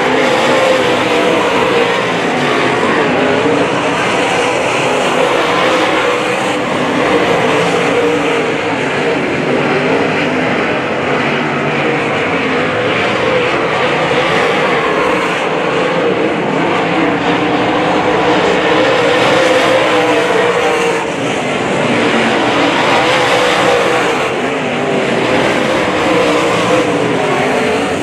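Dirt modified race cars racing on a dirt oval, their V8 engines a loud, continuous drone whose pitch wavers up and down as the field laps the track.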